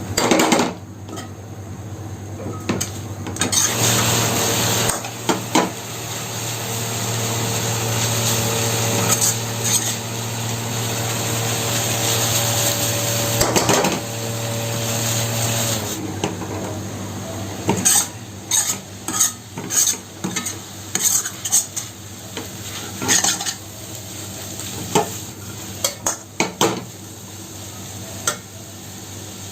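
Metal spatula stirring and scraping noodles, cabbage and capsicum in a hot pan, with a steady sizzle through the first half. In the second half the sizzle drops and the spatula clinks sharply and repeatedly against the pan.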